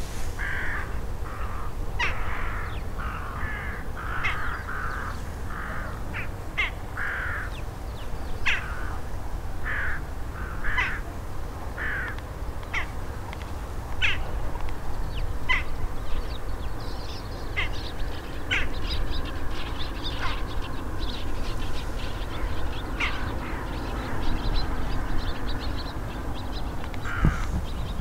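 Daurian jackdaws calling: a run of short, sharp calls, close together for the first dozen seconds, then sparser and fainter, over a steady low rumble.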